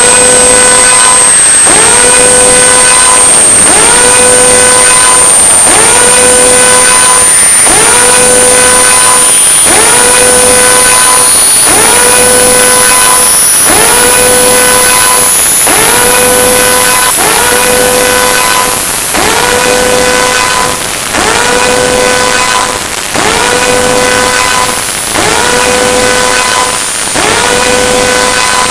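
Old TV with no signal giving out a loud siren-like tone that repeats about every second and a half. Each cycle rises quickly, then holds. Under it runs a steady static hiss and a thin, very high whine that slowly climbs in pitch.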